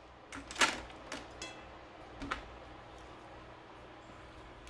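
A few light clicks and taps of crab shell being handled and picked apart by hand, with one brief ringing clink about a second and a half in.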